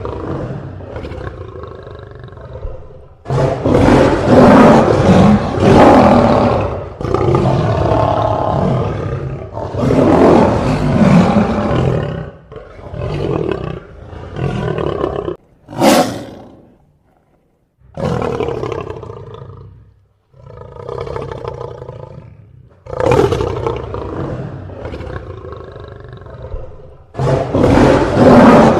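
Lion roars and growls, one after another: about ten separate roars, each two to four seconds long and starting abruptly, with a short sharp one just past halfway.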